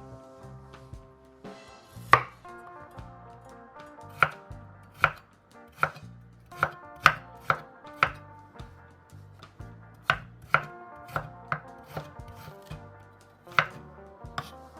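Knife chopping food on a cutting board: irregular sharp strokes, about one or two a second, some much louder than others, over soft background music.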